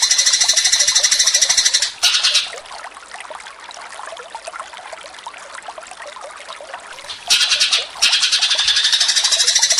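Eurasian tree sparrows chattering in a fast, even run of high chirps, the agitated calls of sparrows fighting. About two seconds in the loud chattering stops, leaving fainter scattered chirps, and it comes back near the end.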